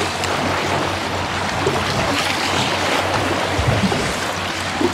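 Steady rush of wind and choppy sea around a small boat, with a low steady hum underneath.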